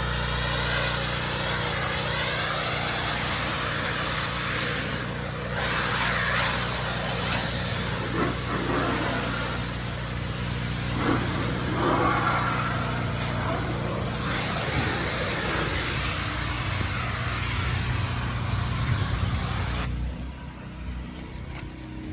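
Pressure washer at work: high-pressure water spray hissing over the steady running of its engine. The spray cuts off suddenly near the end, leaving the engine running.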